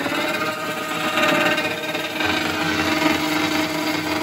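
Steady machine running noise with several held tones, unchanging throughout.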